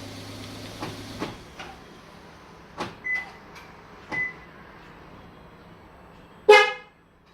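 A Kia Morning's engine idling, then shut off about a second in, followed by clicks, two short electronic beeps, and near the end a single short, loud car-horn chirp from the car's alarm system.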